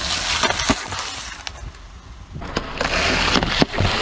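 Car tyre rolling over Pringles cans, crushing the cardboard tubes and the crisps inside with crackling crunches. The crunching comes in two stretches: one at the start and a second from about two and a half seconds in.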